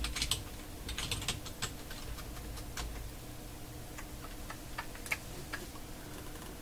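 Typing on a computer keyboard: a quick run of key clicks in the first second and a half, then single keystrokes spaced further apart.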